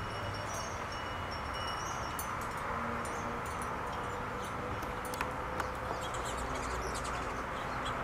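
Outdoor backyard ambience: a steady low background hum, with thin high tones held briefly in the first two seconds, then many quick high chirps and a couple of sharp clicks about five seconds in.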